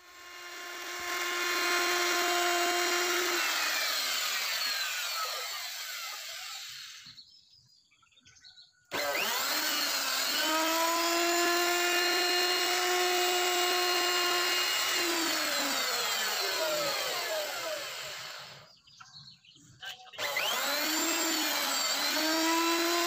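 Electric wood router (trimmer) running and cutting into a wooden door panel, a steady high motor whine with wood-cutting noise. Twice its pitch slides down and the sound dies away to silence, then the router starts up again.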